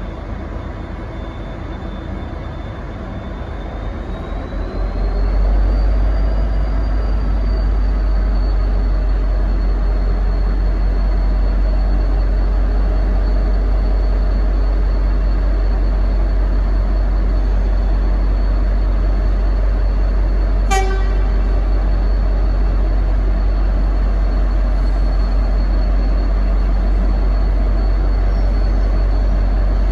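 V/Line N class diesel-electric locomotive (EMD 12-645 V12) running under power: a heavy steady rumble that grows louder about five seconds in, with a thin high whine rising slightly at the same time. A single short toot of its Leslie RS5T horn comes about two-thirds of the way through.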